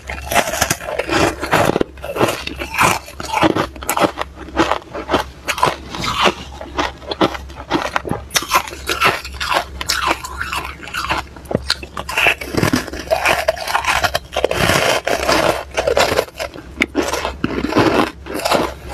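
Close-miked biting and chewing of frozen freezer frost: a dense, irregular run of crisp crunches as chunks are bitten off and crushed between the teeth.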